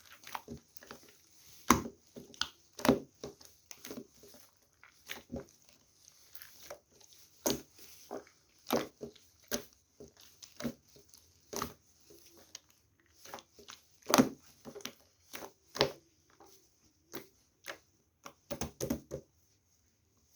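Irregular short crunches and clicks, a few a second, with several louder ones scattered through, in a small room.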